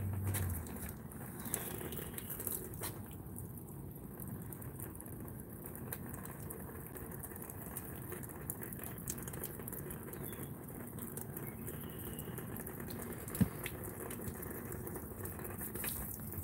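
Water from the jets of a water-fed pole's brush spraying and running on window glass as the brush scrubs: a low, steady splashing hiss, with one sharp knock about three-quarters of the way through.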